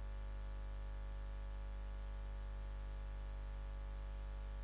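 Steady electrical hum on the audio line: a low mains buzz with many steady overtones over a faint hiss, unchanging throughout.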